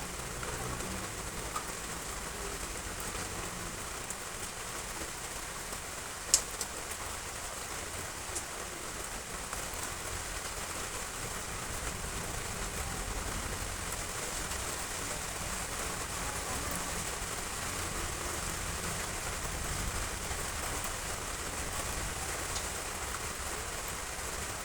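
Heavy rain falling steadily as an even hiss, with one sharp tap about six seconds in.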